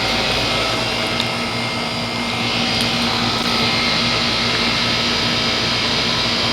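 Heat pump outdoor condensing unit running in cooling mode: the condenser fan's steady whoosh of air over the compressor's steady hum.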